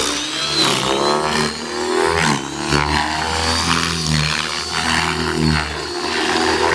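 Radio-controlled helicopter flying aerobatic stunts, its rotor and motor sound rising and falling in pitch again and again as it flips and dives, with short swishes from the rotor blades.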